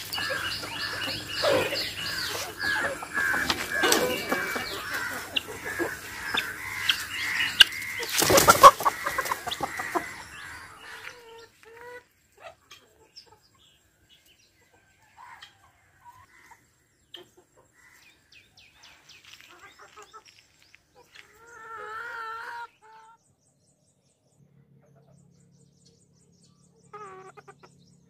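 A flock of chickens clucking and calling, busy and overlapping for the first ten seconds or so, with one sharp knock about eight seconds in. After that the flock thins to scattered calls, with one longer call a little past twenty seconds.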